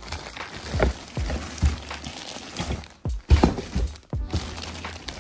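Plastic packaging bags crinkling and rustling as chair parts are handled in a cardboard box, with several dull thumps as the parts knock against the box.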